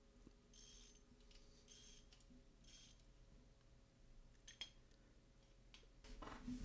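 Faint metal-on-metal work on a road bike's Shimano cassette as the lockring is taken off. There are three short metallic rasps about a second apart, then a few sharp clicks, then louder clinking of steel parts near the end.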